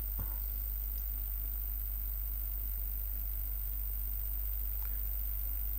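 Steady low electrical hum with a faint hiss and no other sound: mains hum in the recording.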